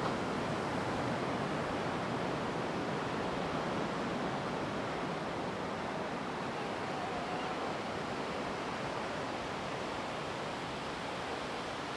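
Sea waves washing steadily on the shore, a smooth, even rush that slowly gets quieter.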